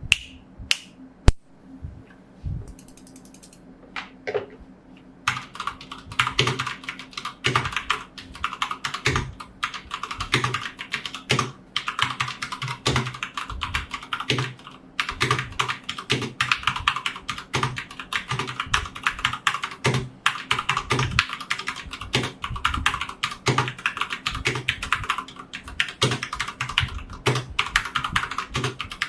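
Typing on a Dareu A87 mechanical keyboard with stock Cherry MX Red linear switches: a few scattered keystrokes, then continuous rapid typing from about five seconds in.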